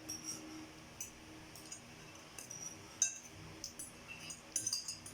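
Forks clinking and scraping against plates while eating spaghetti: a scatter of light, sharp clinks, the sharpest about three seconds in and several close together near the end.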